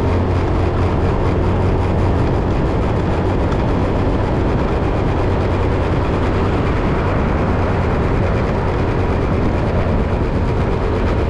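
Steady rumble of a vehicle on the move, road and engine noise with a strong low hum, unchanging throughout.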